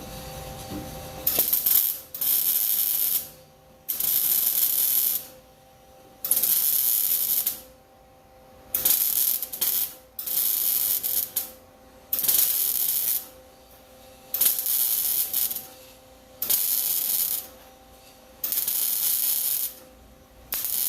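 Welding arc crackling in about ten short bursts of roughly a second each, one every two seconds or so: the floor pan of a Ford F100 being stitch welded into place a tack at a time.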